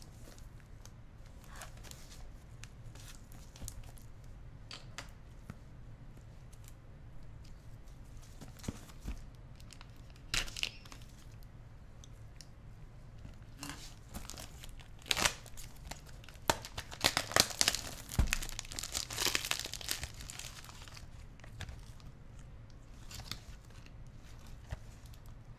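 Plastic shrink wrap on a camera box being cut, torn and crinkled off by hand, with small taps and rustles between. The tearing and crinkling is loudest in a dense run of sharp crackles past the middle.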